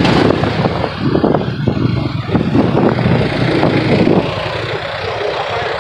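Motor vehicle running in traffic, a steady engine and road rumble that eases a little about four seconds in.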